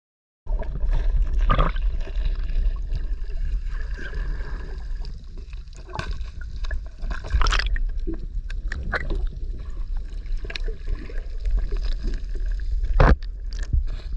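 Muffled water sloshing and gurgling heard from underwater through a camera housing, over a steady low rumble, with scattered small clicks and a few sharper knocks, the loudest near the end.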